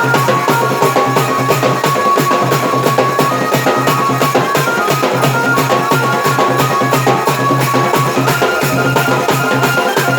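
Dance music with a steady, fast drum beat of about four beats a second under a melody line.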